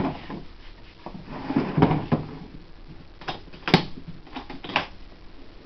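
A box being handled: about half a dozen irregular knocks and clicks, the sharpest a little under four seconds in.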